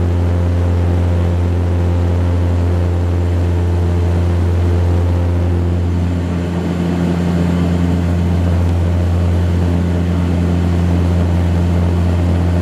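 Embraer EMB-120 Brasilia's turboprop engine and propeller heard from inside the cabin during the climb after takeoff: a loud, steady propeller drone with a deep hum and rushing air, easing slightly for a moment about six seconds in.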